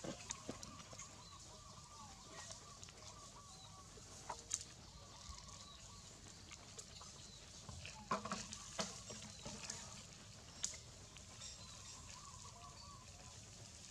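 Dry leaf litter and twigs crackling and rustling as long-tailed macaques move about on the forest floor, with a few sharper crackles around the middle. Faint short calls repeat in the background near the start and again near the end.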